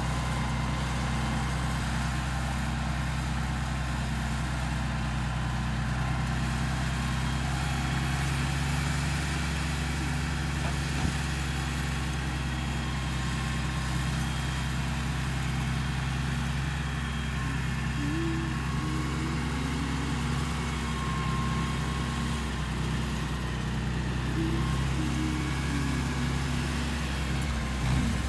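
Farm tractor engine running steadily under load, pulling a shed across the pasture on a tow strap.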